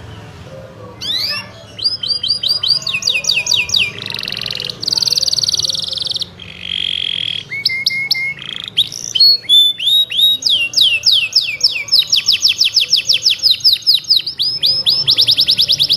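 A domestic canary singing a long, loud song that starts about a second in. It has runs of quick falling whistled notes, short buzzing rolls, and a very rapid trill that fills the second half.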